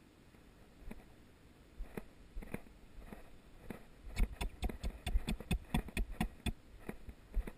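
Handling noise from a body-worn camera being jostled: a few scattered sharp clicks, then from about four seconds in a quick run of sharp clicks and knocks with low thumps, about five a second, for a couple of seconds.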